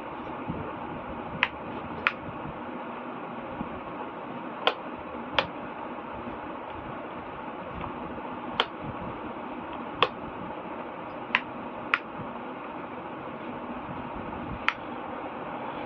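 Repaired wall fan running with a steady, even whir and no grinding or rattling: its fault has been fixed. About nine sharp clicks sound over it, several in pairs less than a second apart.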